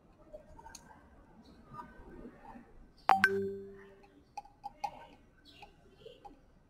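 Sodium hydroxide solution bumping in a glass test tube heated over a Bunsen flame: one sudden sharp pop about three seconds in with a brief ringing after it, then a few lighter ticks.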